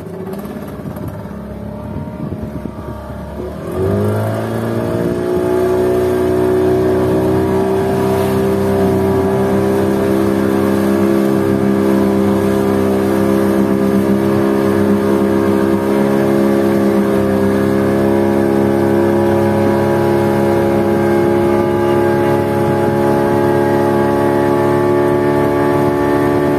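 A fishing boat's engine idling, then opened up about four seconds in: its pitch rises and settles into steady running under way.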